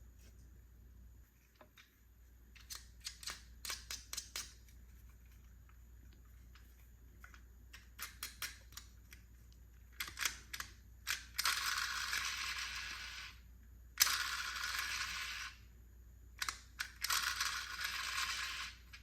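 Light clicks and taps of small plastic toy pieces being handled, then three steady hissing noises of about two seconds each near the end.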